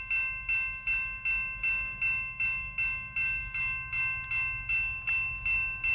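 Railroad grade-crossing warning bell ringing steadily at about two and a half strikes a second, its clear ringing tones held between strikes, with a low steady rumble beneath.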